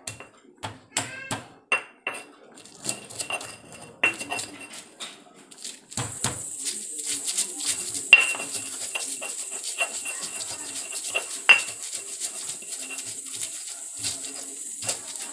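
Stone pestle pounding garlic cloves in a stone mortar (Indonesian cobek and ulekan), with repeated sharp knocks. About six seconds in it turns to a steady rasping grind as the pestle is rubbed round the rough stone, with a few harder knocks.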